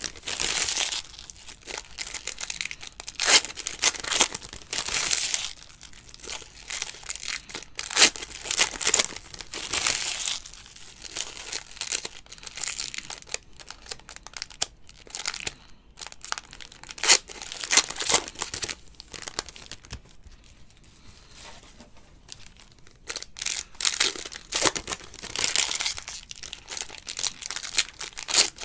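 Foil trading-card pack wrappers (Panini Certified football) crinkling and tearing open, with stacks of cards being slid and flicked through in between. Irregular rustling bursts and small clicks, quieter for a few seconds about twenty seconds in.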